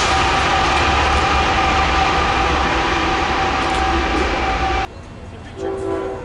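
Diesel freight train locomotives sounding a long, steady multi-note horn blast over the low rumble of engines and rolling cars. The sound cuts off abruptly about five seconds in, leaving quieter background with a short faint tone near the end.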